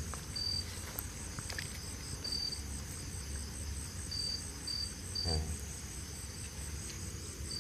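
Night crickets chirping: a steady high trill, with short separate chirps from another insect every second or so.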